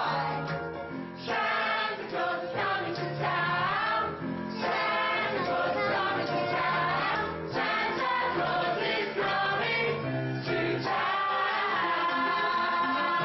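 A choir singing a Christmas song, the voices holding and sliding between notes with short breaks between phrases.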